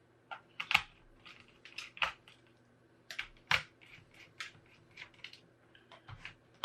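Irregular small clicks and taps of a screwdriver and screws on a Toshiba Tecra R840 laptop's plastic base as its screws are undone, two of them sharper than the rest.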